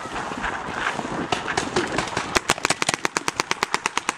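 Rapid paintball marker fire, sharp pops about eight a second, starting a little after a second in and growing dense past the halfway point, over rustling and footsteps through dry leaves as the player runs.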